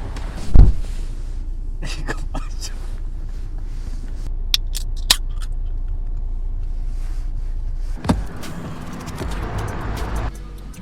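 A car on the road: a steady low rumble, with scattered clicks and knocks and a loud thump about half a second in.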